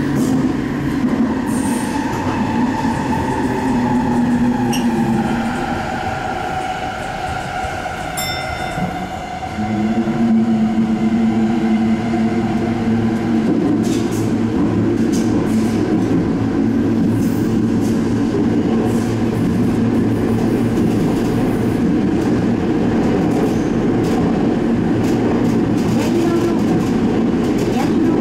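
Sendai Subway Tozai Line 2000 series linear-motor train running through a tunnel, heard from inside the leading car: steady wheel and running noise with a drive whine. The whine falls slowly in pitch and eases off, then about nine and a half seconds in it comes back louder as a new steady hum when power is applied again.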